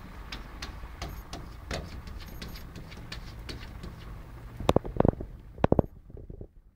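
Cats striking at a glass door: two quick clusters of sharp knocks against the glass, a little over half a second apart, about five seconds in, with scattered light taps and clicks before them.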